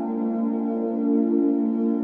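Background music: soft, sustained synthesizer and keyboard chords.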